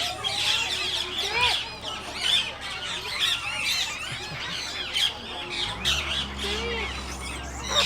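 A crowd of parrots chattering and squawking, with many short calls overlapping. A low steady hum comes in near the end.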